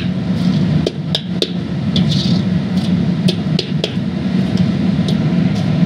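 A steady low mechanical drone from a running machine, with scattered sharp clicks over it.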